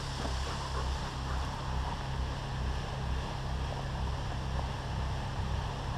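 Steady low rumble of wind and handling noise on a moving camera's microphone.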